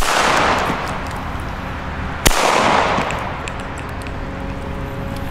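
Two Masclet Faller Grande firecrackers, hand-made Spanish-style bangers, going off one after the other a little over two seconds apart. Each gives a sharp bang followed by an echo lasting about a second. They are described as a notch harder than the smaller Masclet Faller.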